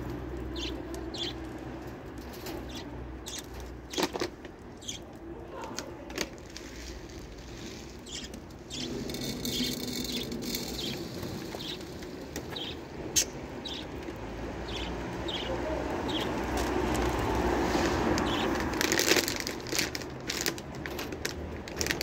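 Budgerigars chirping in short, scattered calls, with bursts of wing flapping as birds fly about the aviary.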